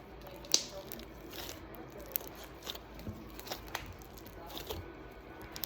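Bingsu slime, slime packed with small plastic beads, being squeezed and worked by hand: faint irregular crackling and pops, with one sharper snap about half a second in.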